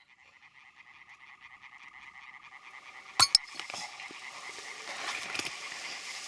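A chorus of frogs calling in rapid pulsing trills, fading in at the start. A little past halfway come two sharp knocks close together, the loudest sounds, followed by rustling handling noise.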